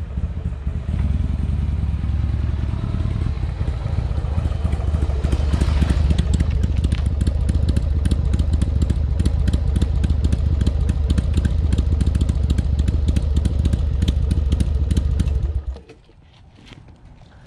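Motorcycle engine running, rising as the bike pulls up and then idling with an even pulsing beat. It is switched off about 16 seconds in.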